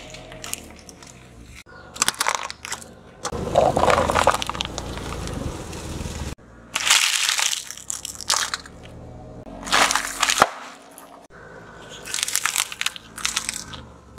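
A car tyre rolling slowly over small objects and crushing them one after another, a plastic basket and wafer ice-cream cones among them: repeated crunches and cracks, with stretches of tyre noise on asphalt between them.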